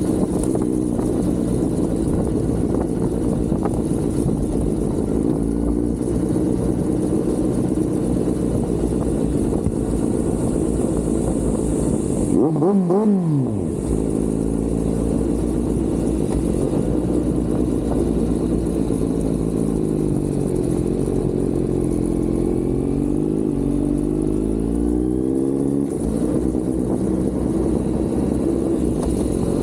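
Kawasaki Z900 inline-four engine and exhaust under way, a steady engine note over low wind rumble. About thirteen seconds in the revs shoot up and fall back in a quick blip, and later the pitch climbs slowly through a gear before dropping off near the end.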